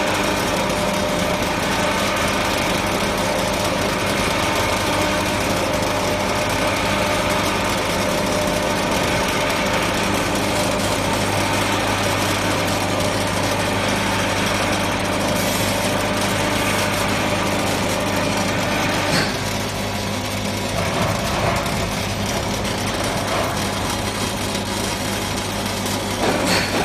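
Small stainless steel screw oil press running: a steady mechanical hum with a whirring noise over it. The level dips slightly about two-thirds of the way in, and a few light knocks come in.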